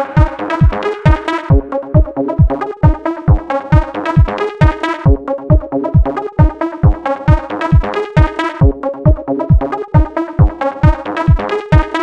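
Background electronic dance music with a steady, driving kick-drum beat, about three beats a second, under layered synthesizer parts.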